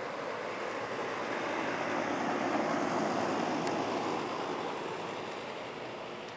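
Outdoor air-conditioner condenser units running: a steady fan rush with a faint low hum, growing louder toward the middle and then fading away.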